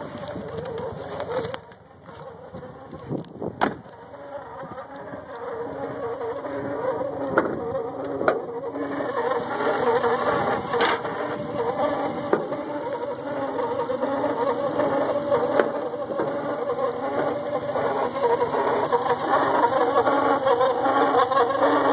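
Subaru Impreza's flat-four boxer engine running with a wavering, warbling whine on top, the new noise that the owner likens to a drowning puppy. It grows steadily louder, with a few sharp clicks in the first half.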